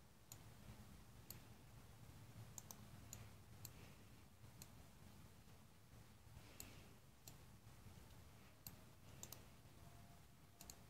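Faint, irregular clicking of a computer mouse, a dozen or so single clicks and quick double clicks, over a low steady room hum.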